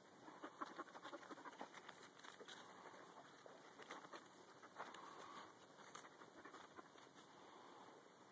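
Faint, irregular footsteps and light scuffs on dry dirt and forest litter.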